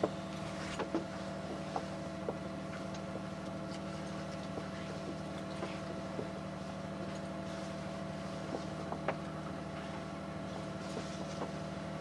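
A sailing yacht's inboard engine running with a steady hum, and a few light clicks and knocks as rope is handled and flaked in the cockpit.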